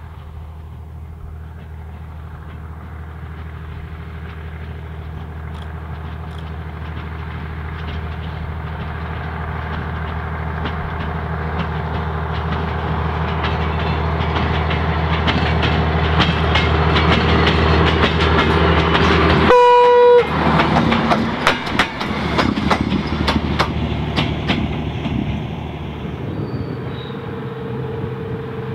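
Vintage diesel rail motor approaching, its engine drone growing steadily louder. It gives one short, loud horn blast about two-thirds of the way in, then its wheels click over the rail joints as it passes.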